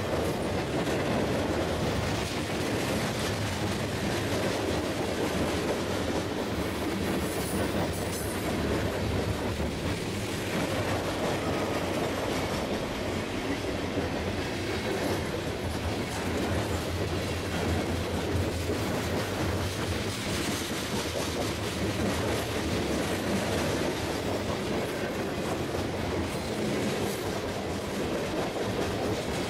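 Freight train passing close by, its boxcars and hoppers rolling along the rails with a steady rumble of wheels on track.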